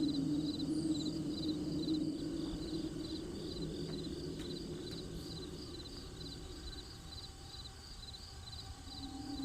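Crickets chirping in a steady rhythm, about two short pulsed chirps a second. Under them is a low steady drone that fades out in the second half and comes back near the end.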